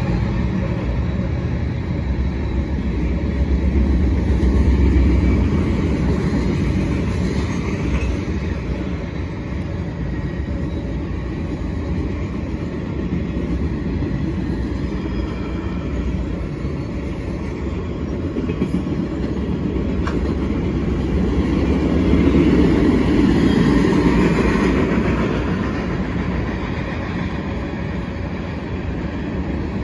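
Freight cars of a Norfolk Southern mixed freight train rolling past, steel wheels running on the rails in a continuous noise that swells louder twice, about a sixth of the way in and again past the middle.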